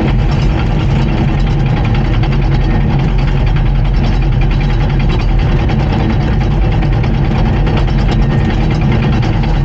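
Diesel engine of a Komatsu D39PX crawler bulldozer running steadily at a constant speed.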